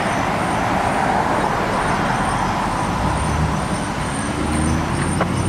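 Water fountain jet splashing steadily into its basin. About halfway through, the low hum of a running vehicle engine joins it.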